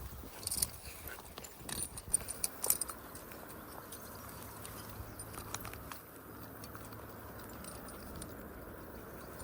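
Light metallic jingling and clicking from dog lead clips and tags as several leashed dogs move, strongest in the first three seconds, then a faint steady background hum.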